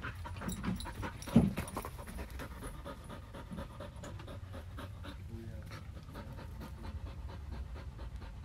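Dog panting steadily close to the microphone, with one loud thump about a second and a half in.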